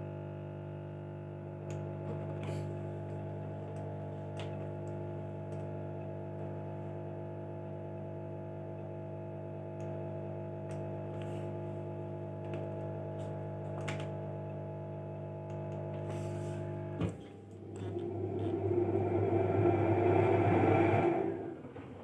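Electrostar 10 kg top-loading washing machine running with a steady electric hum, and a few light clicks at its control panel. The hum breaks off about seventeen seconds in. A louder rush of water then swells for about three seconds and cuts off near the end, the machine drawing in or draining water normally.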